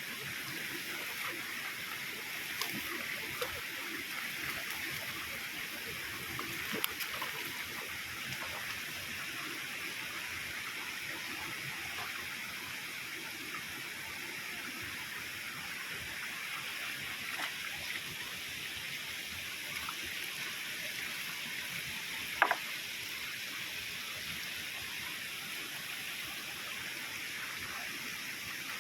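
Water of a mountain spring running and splashing steadily, with a few brief clicks, the loudest one about three-quarters of the way through.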